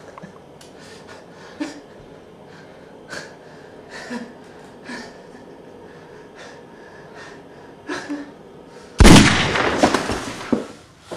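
Short ragged gasping breaths, one about every second. About nine seconds in, a single loud bang with a sudden start and a rough tail that dies away over about a second and a half.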